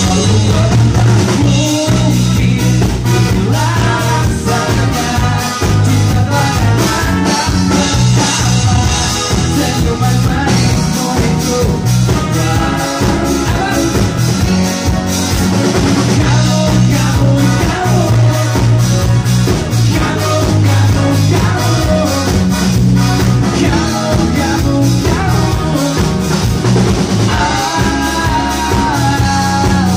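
Live band playing a pop-rock song: a male singer over electric guitar, bass guitar and drum kit.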